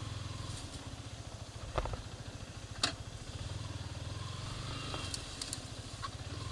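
Yamaha R15 V3's 155 cc single-cylinder engine running steadily at low revs as the motorcycle is ridden slowly over rough ground, with two sharp knocks about two and three seconds in.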